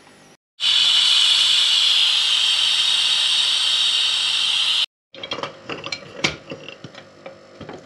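Steam hissing steadily out of an Afghan kazan's pressure valve for about four seconds, releasing the pressure before the lid is opened. After a short break come light metallic clicks and clanks as the lid's clamp is handled.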